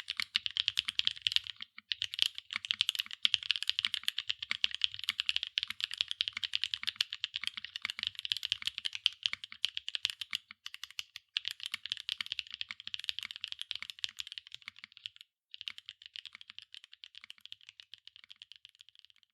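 Fast continuous typing on a 65% mechanical keyboard with JERRZI Rouge linear switches (POM housings, POK stems) and PBT double-shot keycaps on an aluminium plate, a dense stream of sharp keystroke clacks. It breaks off briefly a few times and thins out toward the end.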